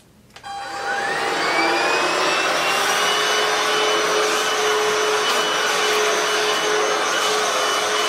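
DEIK battery-powered cordless stick vacuum switched on in continuous mode about half a second in: its motor whine rises as it spins up, then it runs steadily with a loud rush of air while the floor head vacuums carpet.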